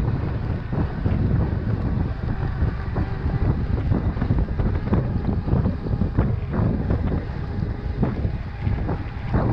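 Wind buffeting the microphone during a fast ride on a Scott E-Genius electric mountain bike, with scattered knocks and rattles from the bike over rough trail.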